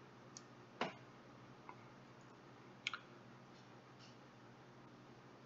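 A few faint, scattered computer mouse clicks over a low, steady background hum. The loudest comes about a second in, and a quick pair of clicks near three seconds.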